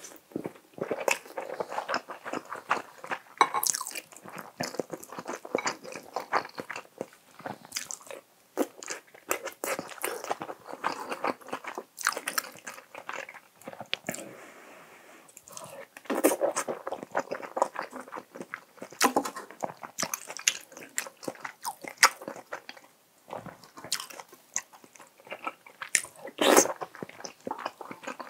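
Close-miked chewing and wet mouth clicks of a person eating spoonfuls of soft, saucy spicy stir-fried tofu (dubu duruchigi), with a couple of short lulls between mouthfuls.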